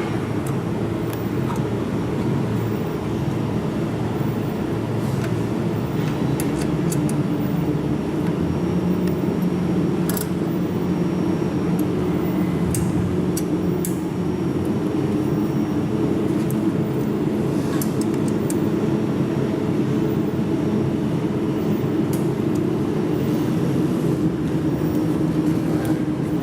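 Steady mechanical hum, like a fan or cooling unit running, with a few light clicks scattered through it.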